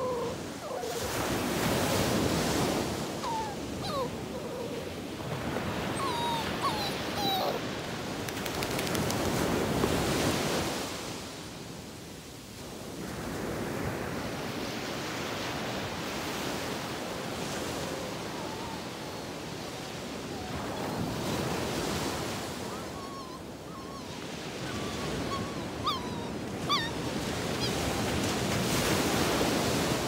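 Ocean surf breaking on a sand beach: a steady rush that swells and falls away every several seconds as each wave comes in. A dog whines briefly now and then over the surf.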